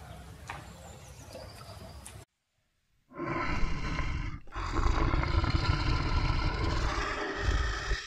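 Soft background sound for about two seconds, then a moment of silence. From about three seconds in, a loud, long, deep animal vocalisation follows, with two short breaks.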